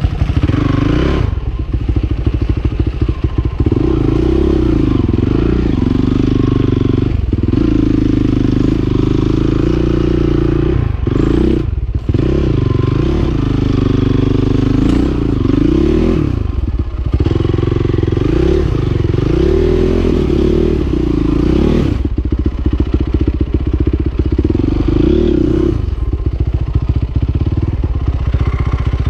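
Honda CRF450R's single-cylinder four-stroke engine revving up and falling back again and again, in short bursts of throttle as the dirt bike is worked over rocks.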